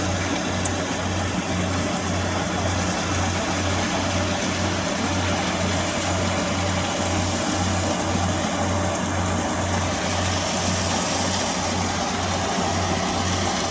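Kubota combine harvester running steadily with a constant mechanical drone, mixed with background music that has a low, even beat about two and a half times a second.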